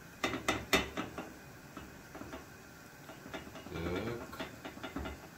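Spatula and frying pan clicking and knocking against each other and the gas stove while a blin cooks, with several sharp knocks in the first second, then lighter scattered taps. A short wavering tone sounds about four seconds in.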